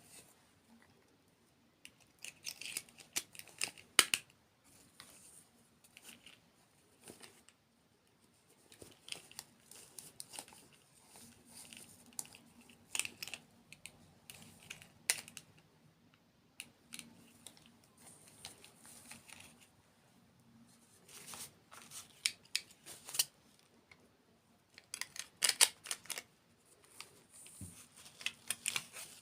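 Close-miked crunchy eating: irregular clusters of crisp crackles and clicks as a hard, crunchy dessert is bitten and chewed, with short quiet pauses between bites.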